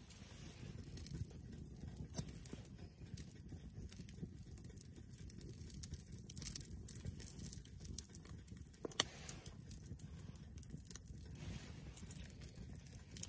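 Wood campfire crackling, with scattered pops over a low steady rumble and one sharper pop about nine seconds in.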